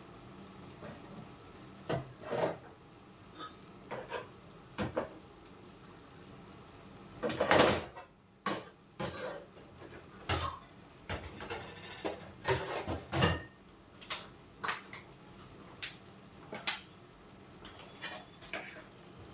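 Kitchenware being handled at a sink: irregular knocks and clinks of metal pans and bowls being moved and set down, with one louder clatter about seven seconds in.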